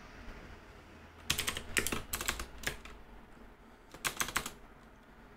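Typing on a computer keyboard: a quick run of keystrokes from about a second in until nearly three seconds, then a short burst of a few more keys about four seconds in.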